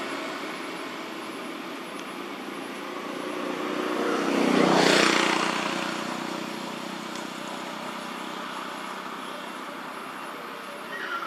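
A vehicle passing by, its noise building to a peak about five seconds in and then fading away.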